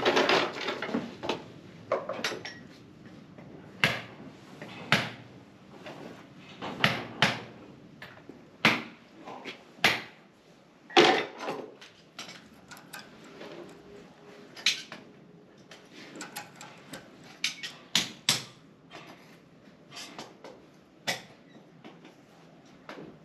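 Farrier's metal hand tools clinking and clattering against each other and the metal tool cart as they are rummaged through and picked up: irregular sharp knocks and clinks, a few louder ones among many lighter ones.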